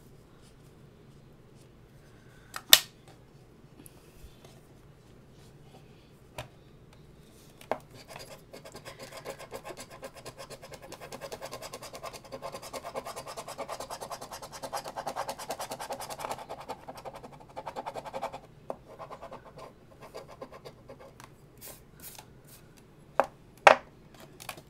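Scratch-off lottery ticket's coating being scraped off with a coin in rapid back-and-forth strokes for about ten seconds. A few sharp taps come before and after the scraping, the loudest near the start and near the end.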